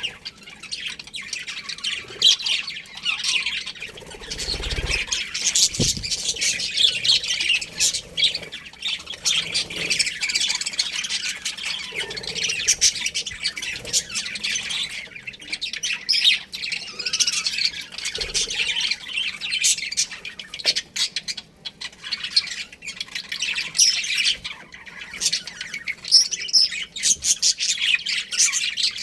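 A pair of budgerigars chattering steadily with rapid high chirps and squawks, with a soft low thump about five seconds in.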